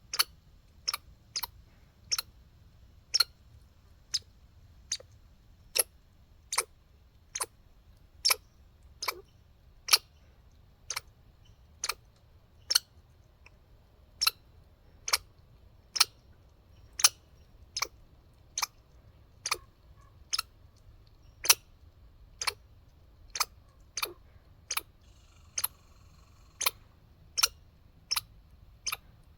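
Squirrel gnawing at its food: a run of sharp, irregular clicks, a little more than one a second, that sound like hiccups.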